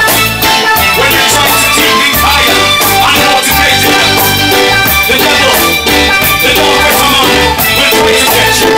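Live reggae band playing: electric guitars over bass, keyboards and drum kit, loud and continuous.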